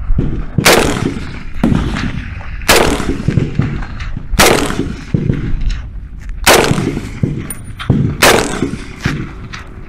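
M1 Garand semi-automatic rifle firing five shots about two seconds apart, each sharp crack trailing off in an echo.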